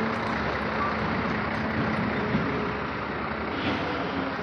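Steady diesel running of heavy trucks and a wheeled material handler at work, with a tipper semi-trailer truck rolling past close by near the end.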